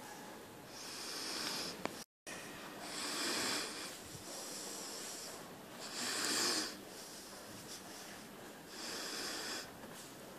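A person breathing, four breaths about three seconds apart. The sound cuts out completely for a moment about two seconds in.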